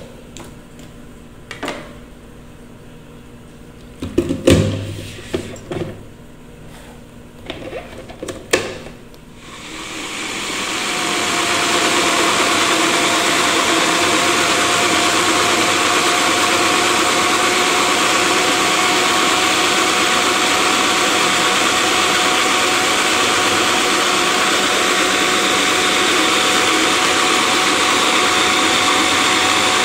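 Knocks and clicks as the personal blender's blade cap is fitted and the cup is set on the motor base. About ten seconds in, the blender motor starts, comes up to speed over a couple of seconds and then runs steadily, blending fruit and water into a smoothie.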